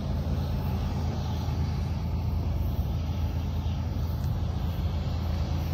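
Steady low engine rumble that holds an even level, with no horn or bell standing out.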